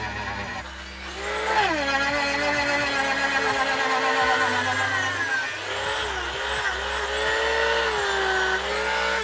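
Dremel rotary tool with a sanding drum sanding a notch into a strip of wood: a steady high motor whine whose pitch dips and recovers several times as the drum bites into the wood, stopping near the end.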